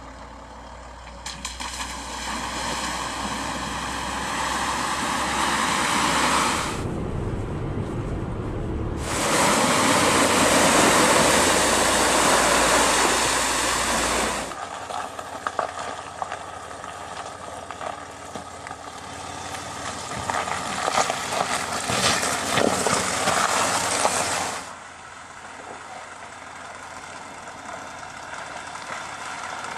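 Land Rover Discovery 4 driving off-road through water: the engine runs with a loud rush of splashing water for several seconds, then the engine and tyres on wet gravel with crackling stones while water pours off the body. It is quieter near the end.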